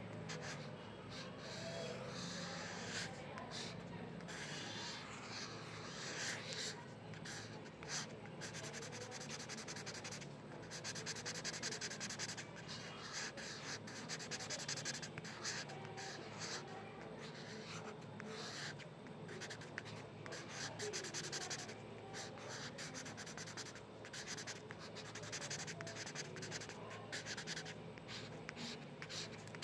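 Pen tip scratching across textured paper as a drawing is inked, in a run of short and longer strokes with brief pauses between them.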